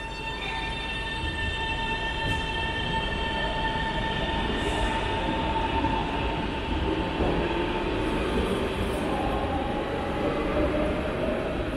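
Shanghai Metro train pulling out of the station: rumbling wheels on the rails with a steady electric motor whine, then a whine that rises in pitch in the second half as the train gathers speed.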